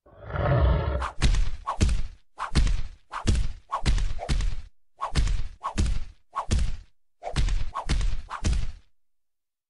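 A rapid run of sharp thumping blows in short volleys, about three a second, as a cat swats a dog's face with its front paw again and again.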